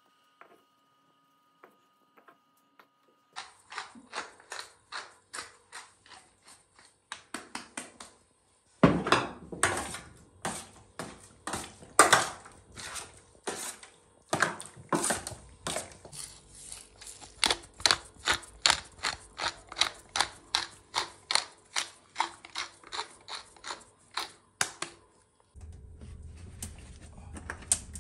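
Metal spoon clinking and scraping against a stainless steel tray while raw meat is mixed, in a steady run of about two to three strikes a second. It grows louder about nine seconds in and stops a couple of seconds before the end, giving way to a low steady hum.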